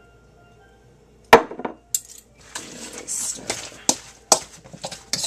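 Metal fork clinking and scraping against a stainless steel mixing bowl while stirring shredded chicken through sauce. A sharp knock comes about a second in, then a run of clinks with scraping in between.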